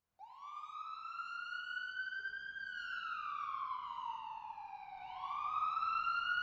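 Siren wail of the police type: a slow rise and fall in pitch, climbing for about two and a half seconds, sinking for about two and a half, then climbing again near the end.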